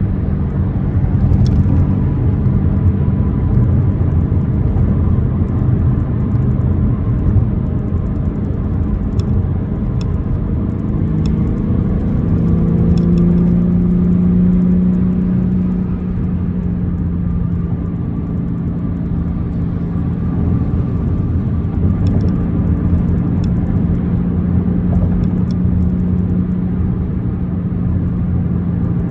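BMW M4 Competition's twin-turbo straight-six running while the car drives, a steady low rumble with tyre and road noise. The engine note rises slightly about twelve seconds in and then holds steady.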